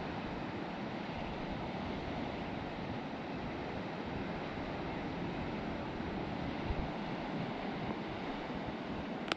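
Sea surf washing onto a beach, a steady rushing wash, mixed with wind buffeting the microphone. A couple of brief bumps stand out, one about two-thirds of the way through and one at the very end.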